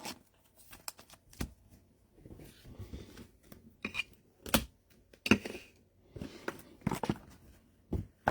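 Trading cards being handled by hand: scattered light clicks, taps and brief rustles as cards are slid and set down.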